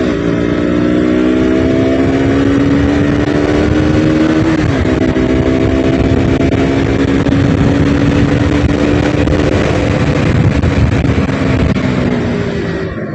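Motorcycle engine under acceleration, its pitch rising, then dropping at an upshift about five seconds in, holding, and easing off near the end, with wind rushing over the microphone at road speed.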